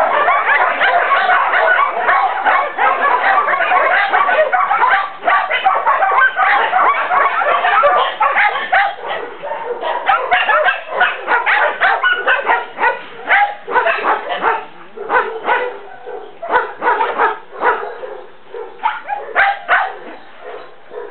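Dogs barking and yipping in a dense, overlapping run, which thins to separate barks in the second half.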